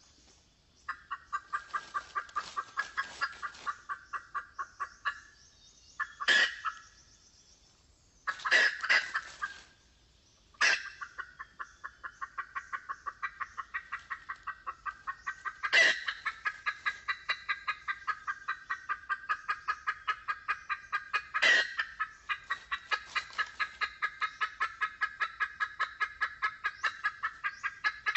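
Red junglefowl hen clucking in long, rapid runs of evenly repeated clucks, several a second, the call used as a lure to trap wild junglefowl. The runs break off in short pauses, and a few louder, sharp notes cut in five or six times.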